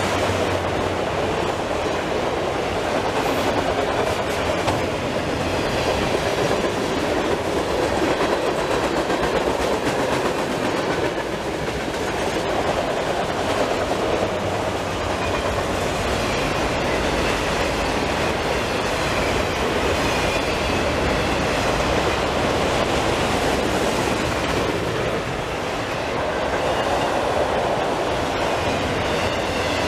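Autorack freight cars rolling past at close range: a steady rumble of steel wheels on the rails.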